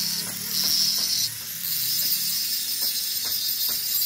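Handheld angle grinder grinding the steel of a truck front axle beam, a steady hissing whine of the disc on metal. The sound dips briefly about a second and a half in, then carries on.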